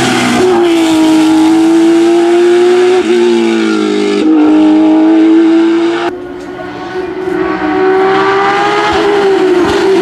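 Porsche 991.2 GT3 Cup's naturally aspirated 4.0-litre flat-six racing engine at high revs under load. The note breaks briefly about 3 seconds in and drops in pitch about a second later. At about 6 seconds it cuts suddenly to a fainter, more distant note that grows louder as the car comes closer.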